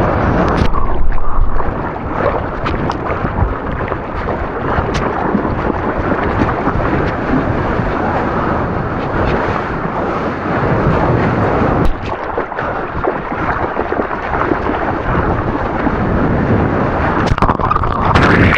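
Rushing surf and wind buffeting a waterproof action camera's microphone while surfing, a loud, steady rumble of moving water with a few small knocks against the housing.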